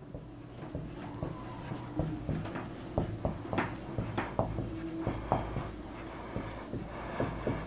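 A pen writing by hand on the screen of an interactive display board: a run of quick, irregular taps and short scratches as each stroke is made, over a steady low hum.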